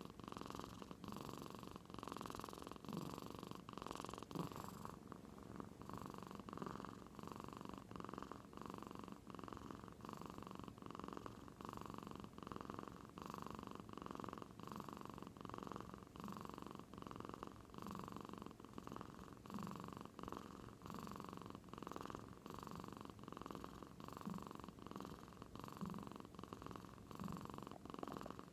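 Sleeping cat snoring in deep sleep: a purr-like rasp that repeats steadily with each breath, like an old man's snore.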